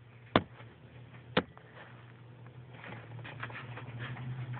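Two sharp clicks about a second apart, then faint scattered ticking and rustle: small plastic toy figures being handled and set down on a hard surface. A low hum runs underneath.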